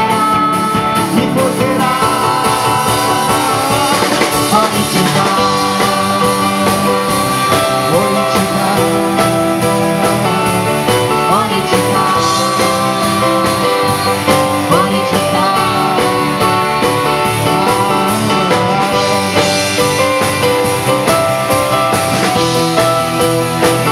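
Live pop-rock band playing: electric guitar, drums and keyboard with male and female vocals, at a steady beat.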